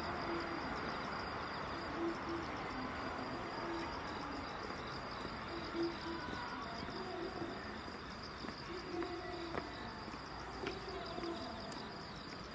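Night insects chirring steadily in a high trill, over a faint low haze, with short low hoot-like notes about once a second.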